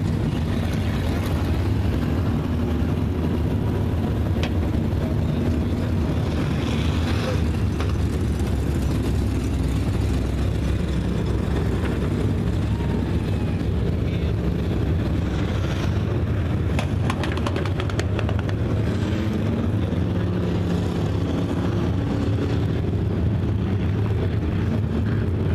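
A field of IMCA Hobby Stock dirt-track race cars running under racing power. Their engines blend into a continuous drone whose pitch wavers up and down as the cars go through the turns and down the straights.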